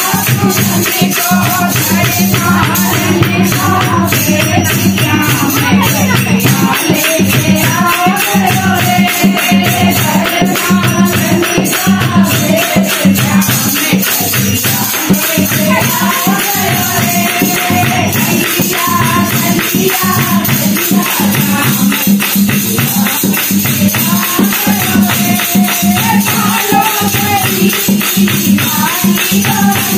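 A group of women singing a Hindu devotional bhajan in kirtan style, with fast, steady clapping and jingling hand percussion keeping the beat.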